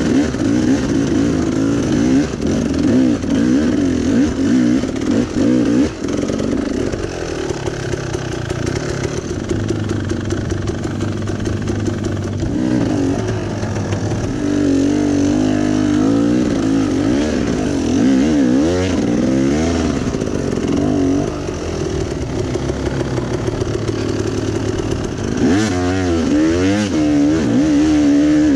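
Enduro dirt bike engine working up a slippery muddy uphill trail. It runs steadily at first, then revs up and down repeatedly in the middle and again near the end as the rider fights for grip.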